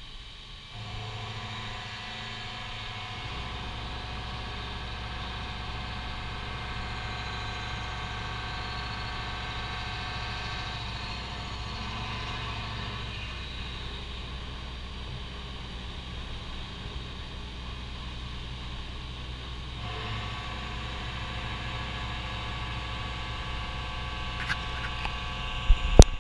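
TOS WHN 13 CNC horizontal boring mill starting its spindle about a second in and running up to a steady hum and whine, at the 1600 RPM named for it. In the last two seconds the cutter bites into the workpiece with a few sharp, loud hits as chips fly.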